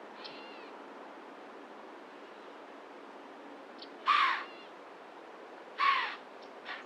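Harsh, crow-like bird calls: two loud short caws about two seconds apart, with a fainter call just before the end and a faint chirp near the start.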